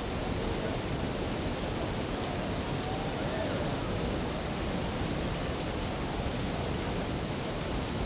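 Steady rushing noise of a waterfall and the river below it.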